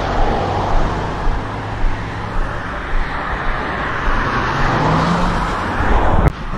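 Road traffic passing close: engine and tyre noise of cars and a pickup truck, swelling as a vehicle goes by, then cutting off suddenly near the end.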